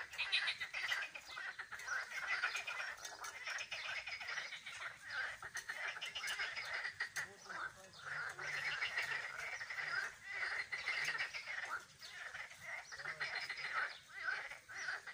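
Chorus of tree frogs calling by the water: many overlapping trains of rapid pulsed croaks, going on without a break.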